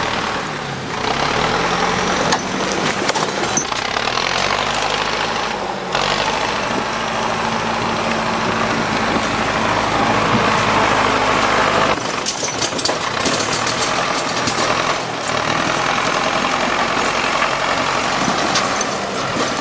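Heavy machine engine running under load, its pitch rising and falling over the first few seconds. The sound changes abruptly at about six and twelve seconds in, with engine noise continuing through each part.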